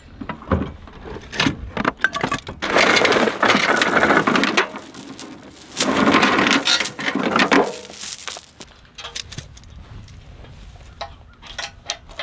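Metal chain rattling and clinking as it is dragged out of a truck bed, in two long rattles with sharp knocks of tools in between. Lighter clicks and knocks of handled metal near the end.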